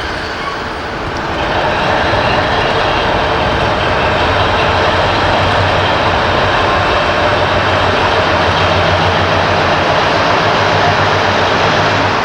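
BR Class 60 diesel freight locomotive with its Mirrlees engine running as the train moves. The sound grows louder about a second and a half in, then holds steady with a low engine hum under the rail noise.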